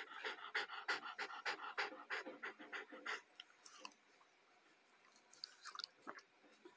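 Newborn schnauzer puppies suckling at their mother's teats: quick, rhythmic sucking at about four strokes a second, which stops about three seconds in. A few faint small sounds follow near the end.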